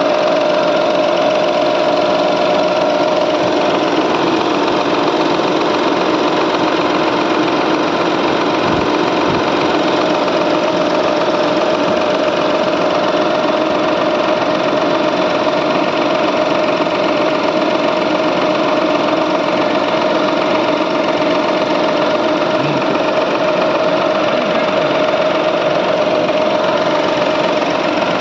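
Mahindra KUV100 running with its air-conditioning compressor engaged, a loud, steady mechanical noise with one strong steady tone over it. The noise from the AC compressor is abnormal: the sign of a compressor problem.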